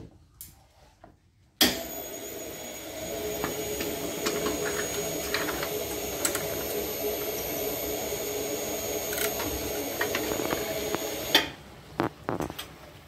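A steady machine hum with a few thin whining tones starts abruptly about one and a half seconds in and stops abruptly near the end. Light metallic clicks of tongs and storage canisters being handled sit over it and continue after it stops.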